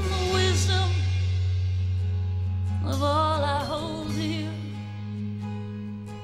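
A band playing a slow song live: a woman sings one phrase at the start and another about three seconds in, over long held bass notes.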